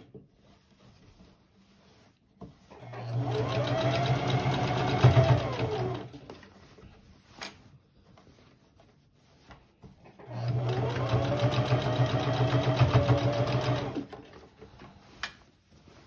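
Electric sewing machine running in two spells of about three seconds each, a steady motor hum with rapid even stitching pulses, as it sews a top stitch through layered cloth. The spells are separated by quiet pauses holding a couple of sharp clicks.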